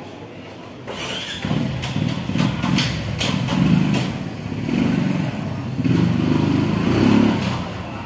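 A motor vehicle engine running, most likely a motorbike. It gets loud about a second in, rises and falls several times, and fades near the end.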